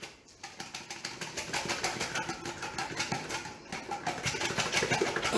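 A container shaken hard upside down over a bowl to get its stuck contents out: a fast run of rattling knocks, starting about half a second in and getting louder.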